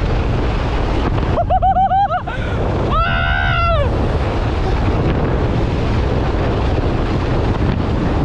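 Heavy wind buffeting on the microphone mixed with tyre rumble on loose dirt during a fast mountain-bike descent. About a second and a half in, a brief wavering high squeal sounds, and a second, steadier squeal follows a second later and falls away as the hiss briefly eases.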